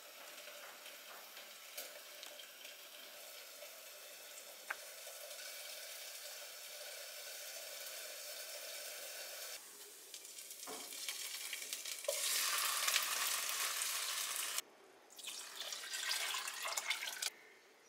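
Chicken fillets sizzling in a non-stick frying pan, a steady hiss of frying. The sizzle grows louder about twelve seconds in and breaks off abruptly twice near the end.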